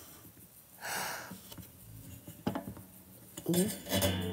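Metal clicks and clatter from a clamp-on stand's metal arm being handled and fitted, with a short scraping rustle about a second in. Near the end a person makes a wordless vocal sound.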